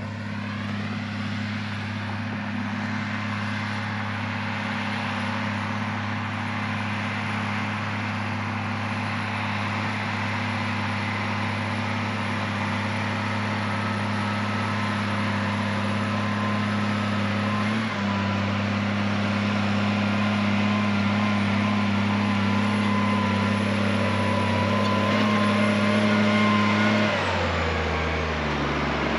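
Case IH Magnum MX270 tractor's six-cylinder diesel running steadily under load as it pulls a deep ripper, growing slowly louder as it draws near. Near the end the engine note drops in steps as it throttles back and slows to a stop.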